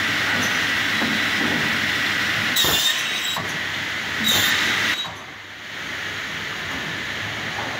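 Cursal TVM Ø600 semiautomatic cross-cut saw running with a steady high whine, making two short, loud cuts through a bundle of boards about two and a half and four seconds in. At about five seconds the sound drops sharply to a quieter steady machine hum.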